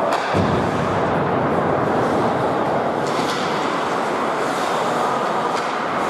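Ice hockey rink noise during a game: a steady wash of sound from the ice and the stands. There is a thud about a third of a second in, and a few short sharp scrapes or clicks later on.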